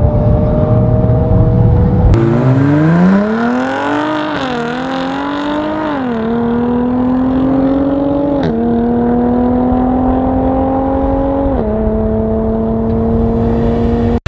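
A supercar's engine pulling hard away up the drag strip through the gears. The note climbs, then drops at each upshift, four or five times, settling into a long steady pull in a high gear. For the first two seconds a different engine holds a steady high note over a low rumble, then breaks off abruptly.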